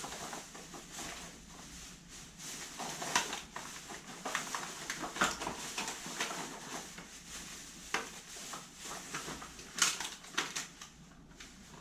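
Irregular light clicks, taps and rustles of small containers and utensils being handled on a tabletop.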